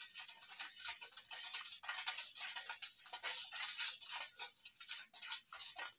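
Spoon stirring salt into water in a bowl: rapid, irregular clinks and scrapes against the bowl with swishing water as the salt dissolves.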